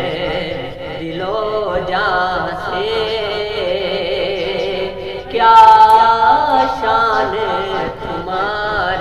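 A man singing a naat solo, without instruments, in long held, wavering notes, with a louder, higher held note about five and a half seconds in.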